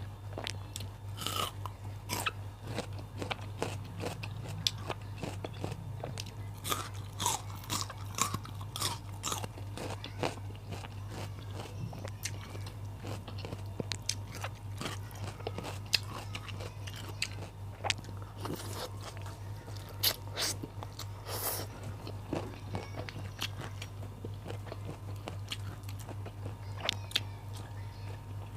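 Close-miked chewing and biting with many irregular crunches, as raw vegetables such as bitter melon, petai and green chilies are eaten. A steady low hum sits under it.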